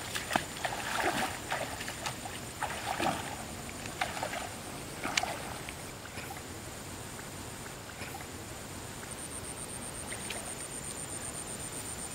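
Legs wading through shallow pond water: irregular splashing and sloshing steps for the first five seconds or so, then quieter water movement. A faint high, pulsing buzz runs in the background.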